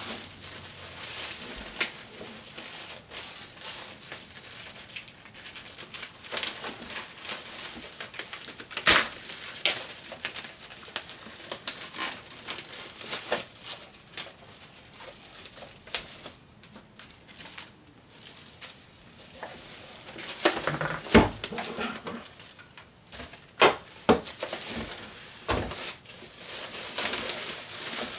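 Clear plastic bag wrapping crinkling and rustling as it is handled, cut and pulled off a robot, with a few sharper cracks along the way.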